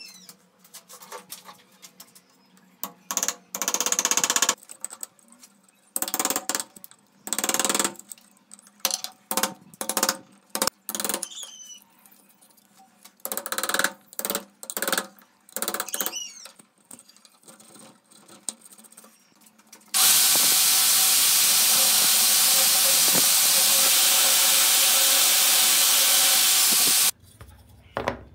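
A hand gouge scraping a round hollow into a wooden block, in a series of short strokes about a second long with pauses between. Later a power tool runs steadily for about seven seconds and cuts off abruptly.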